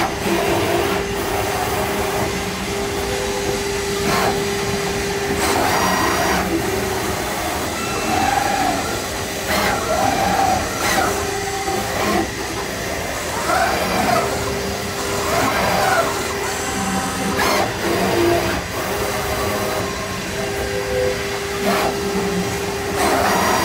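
Five-axis CNC luggage-trimming machine running: a steady motor hum that drops out and comes back several times, with short rising-and-falling whines as the axes move and scattered sharp clanks.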